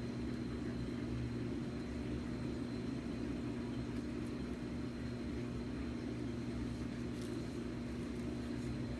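Steady low mechanical hum with a constant tone, like a fan or motor running, and a few faint ticks.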